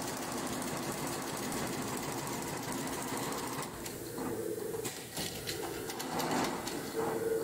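Shengming multi-head sequin embroidery machine running: a steady, fast mechanical chatter of the stitching heads over a motor hum, with sharper clicks standing out from about three and a half seconds in.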